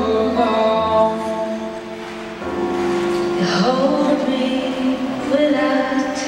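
Recorded music over an arena's sound system: a slow ballad with a held, wavering sung vocal over accompaniment.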